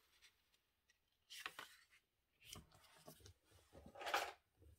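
Sheet of white cardstock being handled and slid about on the work surface after scoring: a few faint, short papery scrapes, the loudest near the end.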